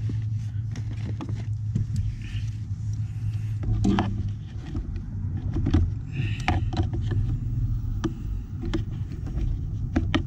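Scattered clicks, knocks and rustles of hands working a wire and a nylon zip tie into place in a cramped footwell, over a steady low hum.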